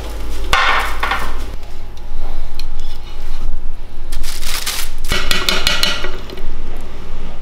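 Kitchen clatter: a foil-lined baking tray and salmon fillets handled on the worktop, then a metal mesh sieve knocking and scraping on a ceramic plate as vegetables are tipped out, with a run of quick clicks about five seconds in.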